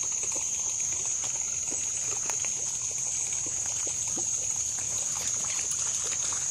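Steady high-pitched drone of summer insects, with scattered faint ticks and rustles.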